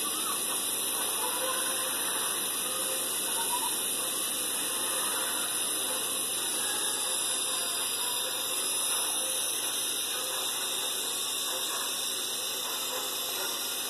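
Steady, harsh high-pitched hiss-like noise from a video's soundtrack playing through a computer's speakers.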